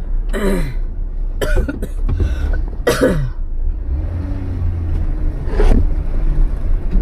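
Jeep engine running with a steady low rumble while crawling a rocky trail. Five short wordless vocal sounds, coughs or grunts, break in over it.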